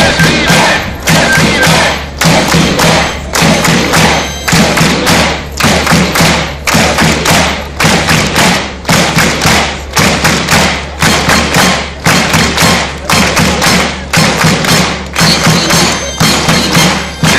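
Large crowd clapping in unison in a steady rhythm, about two claps a second.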